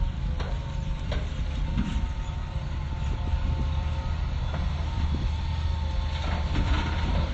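Hitachi excavator's diesel engine running with a steady low rumble, a thin steady whine above it, and scattered short knocks and clanks.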